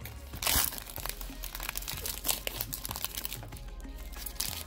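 Foil trading-card booster pack wrapper crinkling and crackling as it is handled, in irregular bursts, the loudest about half a second in.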